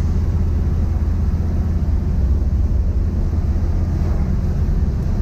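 Steady low rumble of a 1972 Jeep Wagoneer's engine and road noise, heard from inside the cabin while driving.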